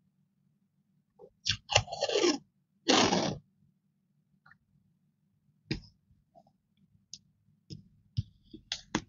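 Masking tape peeled off its roll in two short noisy pulls, the first falling in pitch, followed by scattered light clicks and taps of small scissors trimming the tape and fingers handling it.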